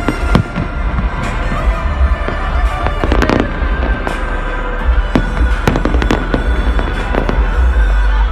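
Aerial fireworks bursting: a string of sharp bangs every second or so, with a quick cluster about three seconds in, over a steady low rumble.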